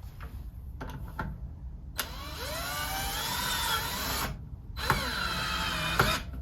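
Power drill motor run twice, its whine rising in pitch as it spins up: a first run of about two seconds, then after a short pause a second, shorter one. A few light clicks come before it.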